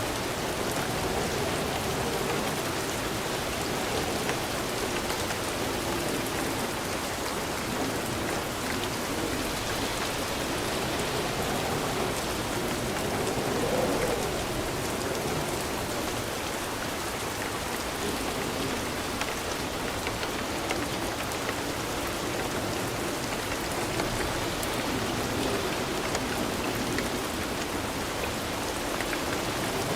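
Steady, dense rain falling and pattering on surfaces, swelling slightly about halfway through.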